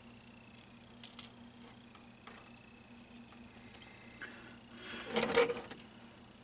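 Small parts and hand tools being handled on a workbench during kit assembly: a couple of light clicks about a second in, then a short, louder clatter a little after five seconds.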